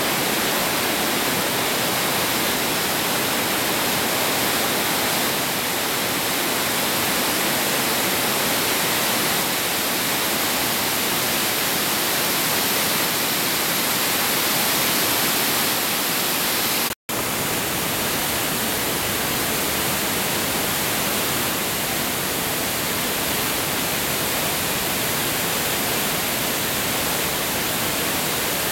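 Steady rush of a waterfall pouring over a dam spillway and down rocky rapids, an even hiss-like wash of water with no change in pitch. It cuts to silence for an instant about two-thirds of the way through, then resumes unchanged.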